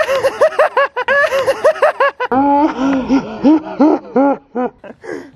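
A man laughing loudly in quick, high-pitched bursts, about four or five a second, turning to lower-pitched laughter a little over two seconds in and trailing off near the end.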